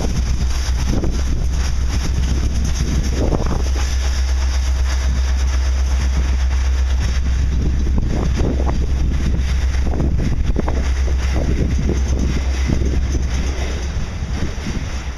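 Freight train rolling past, its cars running steadily on the track, with heavy wind buffeting on the microphone adding a constant low rumble and irregular gusts.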